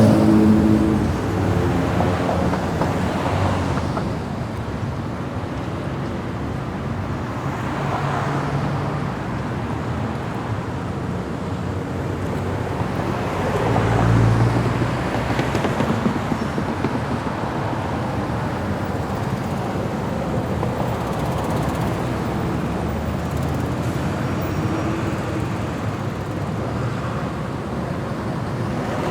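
City street traffic: a steady wash of engine and tyre noise, with vehicles passing now and then, the loudest near the start and another about halfway through.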